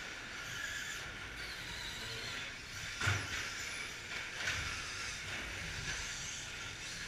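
Electric radio-controlled short course trucks of the 17.5-turn brushless motor class, their motors whining and tyres running on a dirt track as they race past. A sharp thud comes about three seconds in and a smaller knock about a second and a half later.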